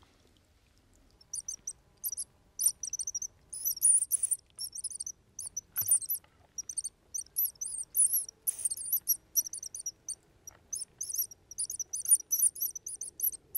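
Rottumtaler mouse-squeak predator call made of real antler, blown in a quick, irregular series of short, high squeaks that imitate a mouse to lure foxes and other predators. The squeaking starts about a second in.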